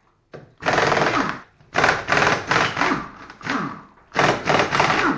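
Impact wrench hammering on a car wheel's lug nuts in three bursts of one to two seconds each, loosening the wheel for removal.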